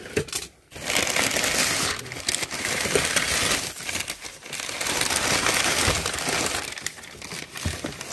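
Crumpled packing paper rustling and crinkling as hands dig through it inside a cardboard box. It starts about a second in, with brief lulls, and eases off near the end.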